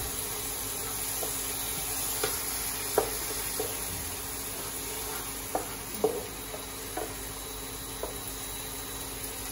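Chopped vegetables and tamarind paste sizzling in a nonstick frying pan as a spatula stirs them, with scattered light knocks and scrapes of the spatula against the pan.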